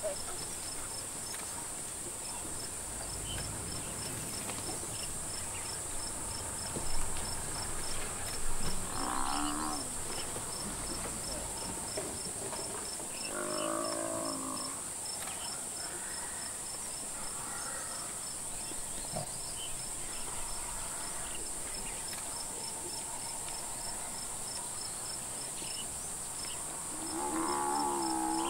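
Steady high-pitched insect buzzing with a regular faint ticking, broken by a few sudden knocks. Three times, an African buffalo bellows in distress as lions pull it down.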